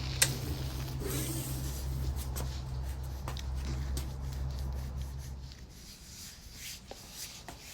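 Light rubbing and scattered small clicks from hands handling the washer's hose fittings, over a steady low hum that cuts off about five and a half seconds in.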